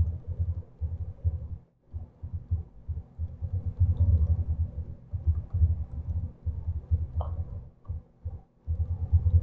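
Computer keyboard typing: a fast, irregular run of key strokes that come through as dull low thumps, in short bursts with brief pauses, as a password is entered twice.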